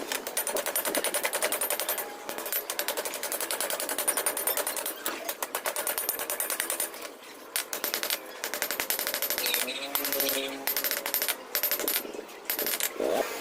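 Fast, even run of hammer blows on steel, typical of forging a Damascus billet under a power hammer. The blows pause briefly a couple of times.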